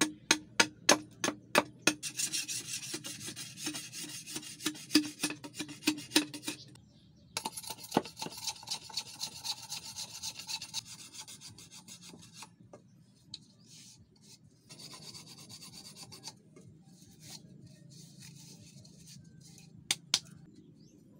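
Long-bladed knife working green bamboo: a few sharp chops at the start, then fast rasping scrapes in runs broken by short pauses as the blade shaves the bamboo cup. Two sharp knocks come near the end.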